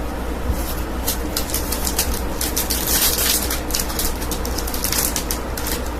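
Trading cards and their plastic packaging being handled: a run of short rustles and crinkles, densest about three seconds in, over a steady low hum.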